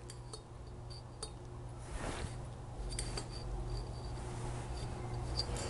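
A few faint, light metal clicks and a soft scrape as a piston ring is pushed square in a Harley-Davidson Evolution cylinder bore with a hand tool, over a steady low hum.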